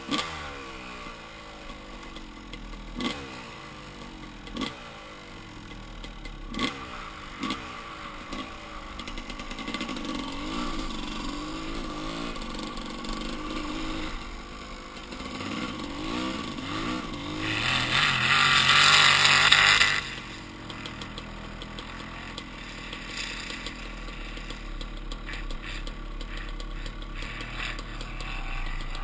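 Off-road single-cylinder engine being ridden hard over sand dunes, its revs rising and falling as the throttle is worked, with a few sharp knocks in the first several seconds. About 18 seconds in, a loud rushing noise drowns it out for two seconds, then stops abruptly.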